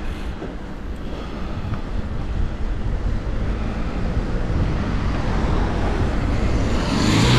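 Wind rumbling on the microphone with road and traffic noise while moving along a street. Near the end a car approaches and passes close, the loudest moment, with a low engine hum.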